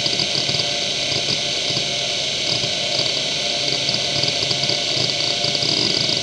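Seagate ST9145AG laptop hard drive spinning with a steady hiss and whine, its heads seeking in irregular rapid chatter as Windows 95 reads from it while loading the desktop.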